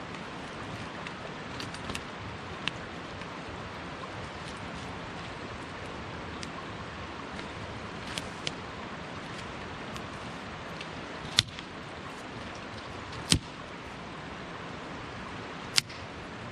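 Steady rushing of a mountain stream, with a few faint ticks and three loud, sharp cracks in the second half.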